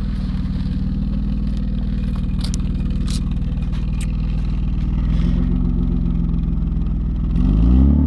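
BMW E36 engine idling steadily, its note stepping up slightly about five seconds in, then revved up near the end.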